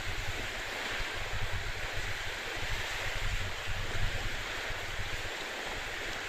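Strong wind rushing over the microphone and sea water rushing past the hull of a car ferry, a steady even roar with a low rumble underneath.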